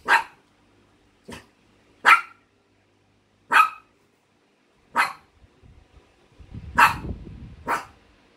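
Small dog barking: seven short, sharp single barks, one to two seconds apart, with a low rumble under the sixth bark.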